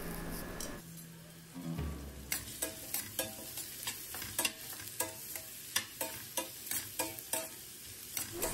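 Chopped onions sizzling in hot oil in a pan as they start to sauté, with a spatula stirring and knocking against the pan about twice a second from about two seconds in.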